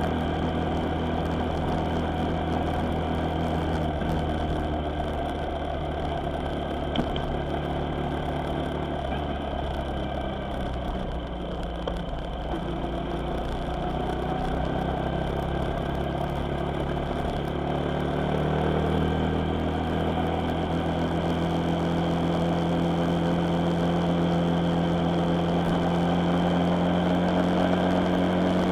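A vehicle's engine running steadily on the road, with road noise. The engine note sags a little in the middle, then rises about two-thirds of the way through and holds higher as it speeds up.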